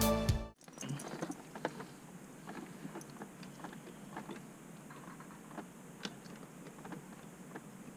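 A piece of music cuts off about half a second in, then faint, irregular small clicks and light taps of hand tools and metal parts being handled during repair work, over quiet garage room tone.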